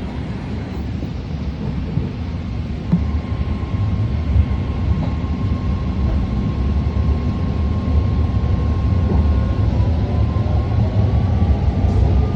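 BART train running between stations, heard from inside the car: a low rumble of wheels on the rails that grows slowly louder. A thin steady whine sets in about three seconds in, and near the end the whine rises in pitch as the train picks up speed.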